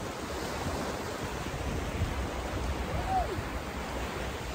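Small surf waves washing steadily onto a sandy beach, with a short call that rises and falls in pitch about three seconds in.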